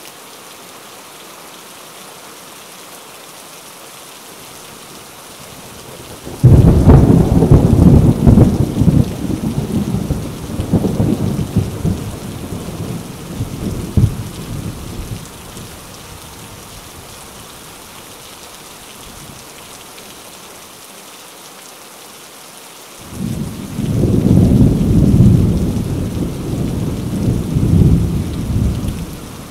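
Steady rain falling, with two loud rolls of thunder. The first starts suddenly about six seconds in and rumbles for several seconds before dying away. The second builds up later and rumbles until near the end.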